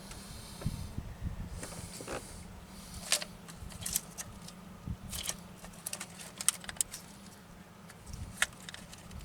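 Scattered light metallic clicks and scrapes of hand tools working and cleaning around a fuel line fitting.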